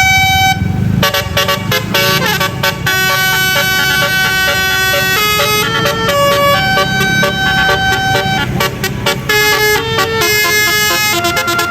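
Bus 'telolet basuri' musical air horn playing a melody: a run of quick short notes, then longer held notes, stepping up and down in pitch over a low rumble.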